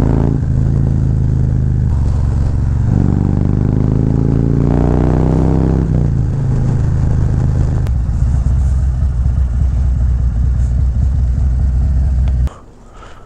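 Harley-Davidson V-twin motorcycle engine pulling through the gears, its pitch rising in sweeps, then running more evenly as the bike slows. The engine cuts off suddenly near the end.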